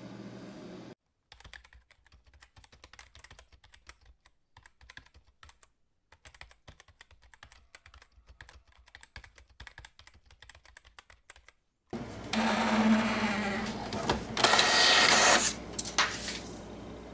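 A long run of quick, light clicks, like keys being typed, for about ten seconds; then a much louder rushing noise starts suddenly near the end.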